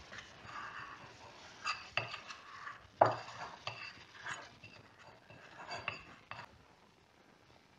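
Plastic dough scraper scraping and knocking against the inside of a glass bowl, freeing leftover sticky rye dough: a series of scrapes and clicks with a light ring, the loudest knock about three seconds in.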